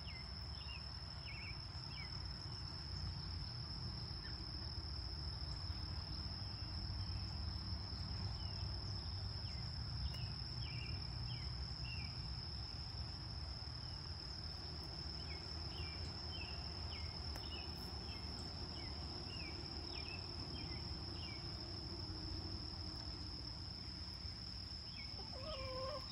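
Steady high-pitched insect chorus, crickets or katydids, droning without a break, with scattered short bird chirps and a low background rumble.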